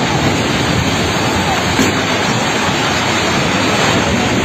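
Multi-storey apartment building collapsing in an earthquake: a loud, continuous roar of falling concrete and debris.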